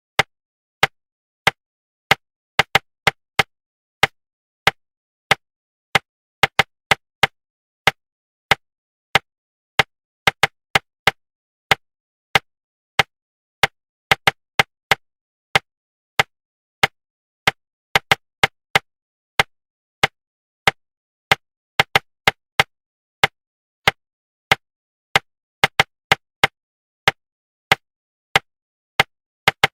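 Short, sharp knocks tapped out in an uneven rhythm of single taps and quick pairs and triples, about one to two a second, with silence between. This is a rhythm-tapping pattern used to suppress subvocalization during speed reading.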